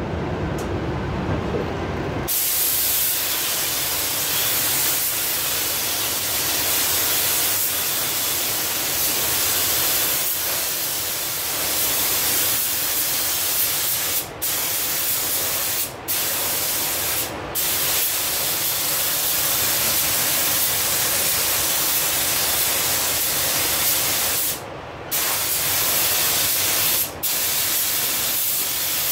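Gravity-feed automotive paint spray gun hissing steadily as compressed air atomises the paint. It starts about two seconds in, after a low rumble, and breaks off for brief moments several times.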